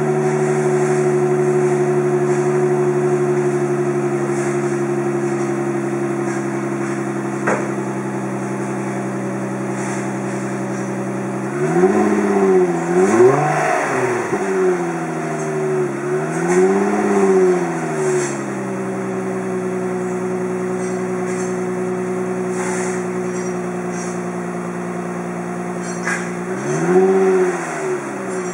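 2011 Infiniti G25's V6 idling through an exhaust with a glasspack and screamer pipe, then blipped: a pair of quick revs about halfway through, another a few seconds later, and one more near the end, each rising and falling back to idle.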